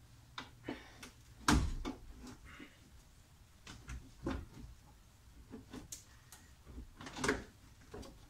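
Porsche 911SC washer fluid tank being worked loose and pulled out of the front wheel well by hand: irregular knocks, bumps and scrapes against the body, the loudest about one and a half seconds in.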